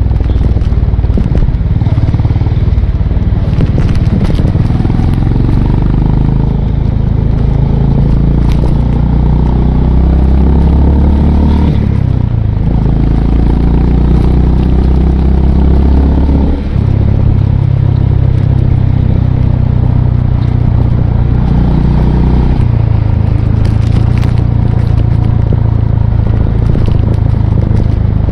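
Honda CB350RS's air-cooled single-cylinder engine running under way on the move. Its note steps to a new pitch a few times, with a brief dip in level about seventeen seconds in, like a gear change.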